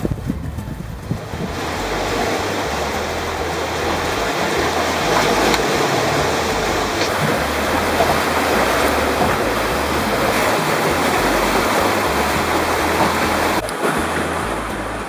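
Steady rush of sea water and wind aboard a sailing catamaran under way, with a short break near the end.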